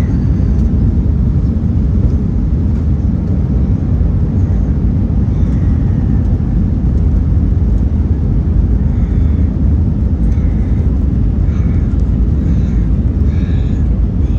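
Steady, loud low rumble of the QantasLink Airbus A319-100's jet engines and airframe noise, holding even with no rise or fall.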